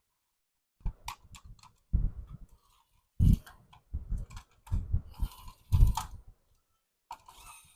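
Plastic toys being handled, with irregular clicks, taps and soft knocks in uneven bursts, the first starting about a second in and the loudest knocks about halfway through.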